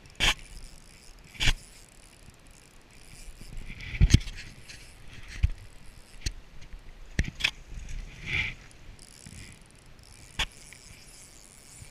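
Irregular sharp clicks and knocks, about seven spread over the stretch, with a few short rattling bursts, from fishing tackle being handled while a fish is on the line.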